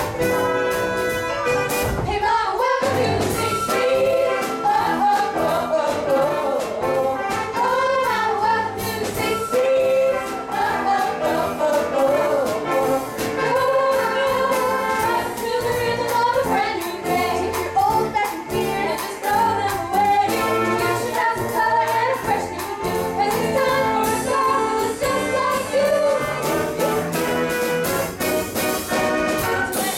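A live pit band with brass plays an upbeat show tune while the cast sings. The band comes in more fully about two seconds in.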